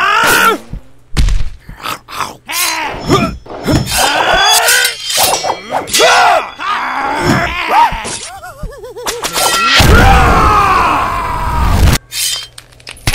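Animated fight-scene soundtrack: a rapid string of strained cries, groans and screeches mixed with the whacks and thuds of blows. Near the end a loud low rumble runs for about two seconds and cuts off suddenly.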